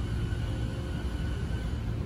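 JR East E217-series electric train pulling away from the platform at low speed: a low rumble from wheels and motors, with a faint steady whine from the traction inverter.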